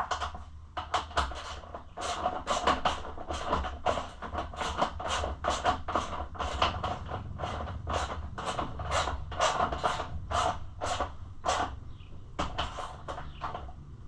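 Hand ratchet with a 10 mm socket working a bolt: repeated ratcheting strokes, about two to three a second, with a short pause about twelve seconds in. A steady low hum runs underneath.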